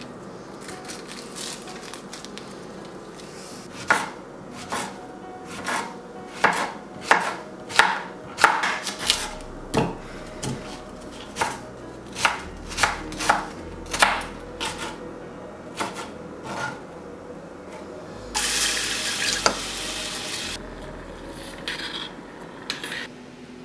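Knife chopping vegetables on a cutting board: a run of sharp, irregular knocks, one or two a second. Near the end comes a couple of seconds of loud hissing.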